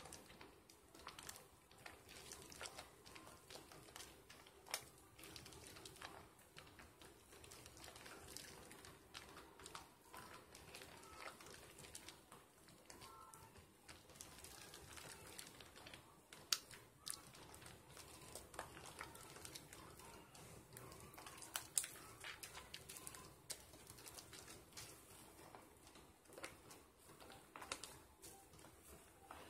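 Faint wet squishing and crackling of thick soap lather as hands work a soap sliver, with many small clicks and two sharper pops.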